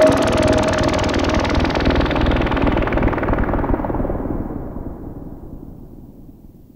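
Electronic synthesizer noise with a rapid fluttering pulse, growing steadily duller and quieter until it fades out near the end.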